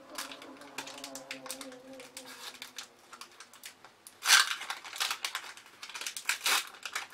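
Foil wrapper of a Pokémon trading card booster pack crinkling and tearing as it is pulled open by hand: small scattered crackles at first, then louder, denser tearing and crinkling from about four seconds in.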